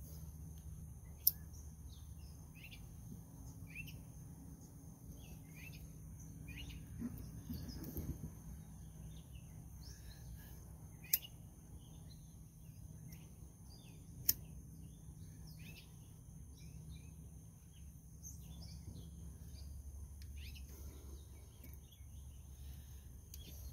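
Outdoor ambience: scattered short bird chirps over a steady high insect drone and a low steady hum. Three sharp clicks stand out, about a second in and twice more around eleven and fourteen seconds in.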